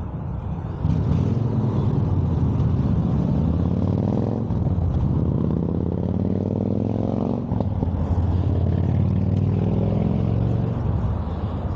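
A motor vehicle engine running, its pitch rising and falling twice as it revs or passes.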